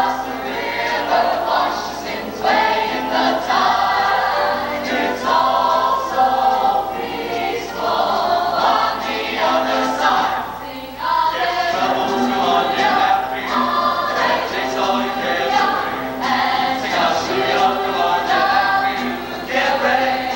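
High school mixed show choir singing.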